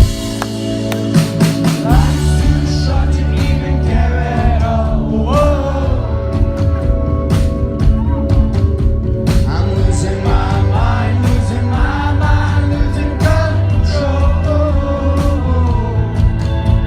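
Rock band playing live, with a lead singer over a full band; the bass and drums swell in about two seconds in.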